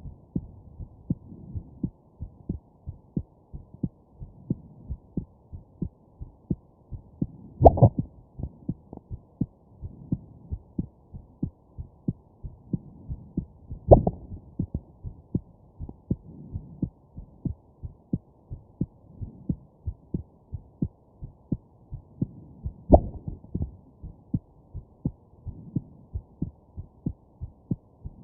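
A person's heartbeat recorded close at the chest, sounding dull and muffled, with steady regular beats. Three louder, sharper jolts from hiccups cut in at irregular intervals, about eight, fourteen and twenty-three seconds in.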